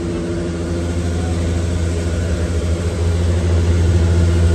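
Vehicle engine running with a steady low hum, getting louder about three seconds in.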